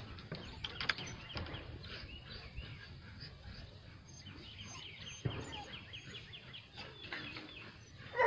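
Small birds chirping, with a rapid even trill a little past the middle, and a couple of faint knocks.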